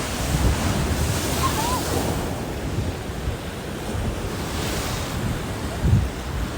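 Sea waves breaking and washing in, swelling about a second in and again near five seconds, with wind buffeting the microphone.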